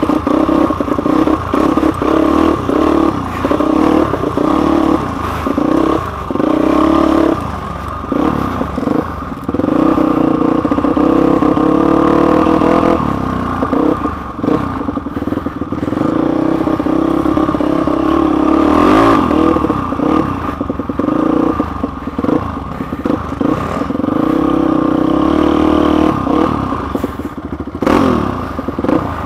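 Big-bore Suzuki DR-Z440 single-cylinder four-stroke dirt bike engine running on a trail ride, its revs rising and falling with the throttle and dropping back briefly several times, picked up by the camera mounted on the bike. Clatter from the bike going over rough ground runs underneath.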